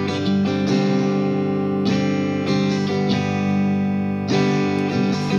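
Live worship-band music with no singing: electric guitar over keyboard, playing sustained chords that change about once a second.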